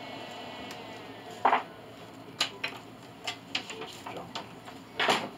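A steady high whine falls in pitch and dies away about a second in. It is followed by a series of sharp metallic clanks and knocks as steel clamps and tools are handled on a workbench, the loudest near the start and just before the end.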